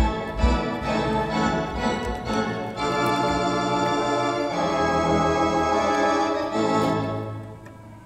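Mighty Wurlitzer theatre pipe organ playing full sustained chords that change a few times, with deep bass thumps near the start. The music fades away near the end.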